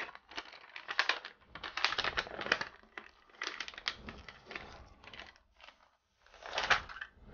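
A plastic comic book bag crinkling and rustling in irregular bursts as it is unsealed and the comic is slid out of it, with the loudest rustle near the end.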